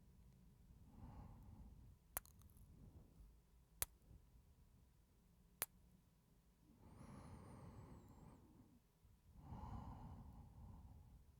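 A man breathing slowly and heavily close to the microphone, with a few soft sighing exhalations; one carries a faint high whistle. Three short, sharp mouth clicks fall between the breaths, in the first half.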